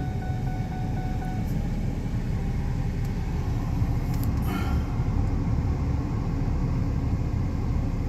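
Steady low rumble of a car heard from inside the cabin with the engine running. About four and a half seconds in there is a brief rustle.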